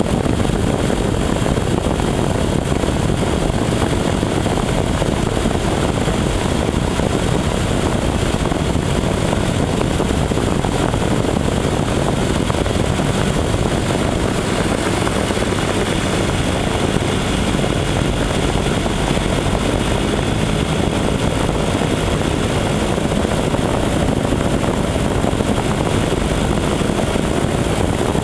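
Single-engine propeller aircraft's engine and propeller heard from inside the cockpit: a loud, steady drone on final approach.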